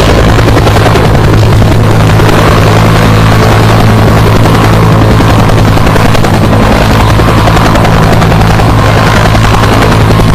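UH-1H Huey helicopter running: the turbine engine and two-blade main rotor make a loud, steady drone with a constant low hum.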